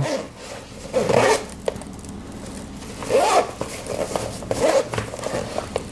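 Zipper on a cooler bag being pulled by a freshly tied string pull, running in three short raspy strokes about a second, three seconds and four and a half seconds in, with small clicks between them.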